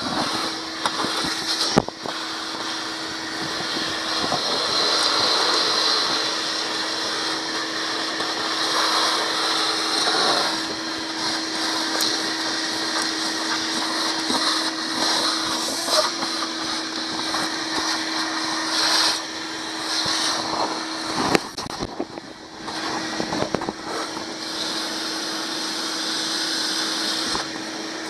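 Vacuum cleaner running steadily with a constant motor whine as its ribbed hose and crevice nozzle suck up loose dirt and carpet scraps from a boat floor. There are occasional sharp clicks, and the sound briefly drops and breaks about three quarters of the way through.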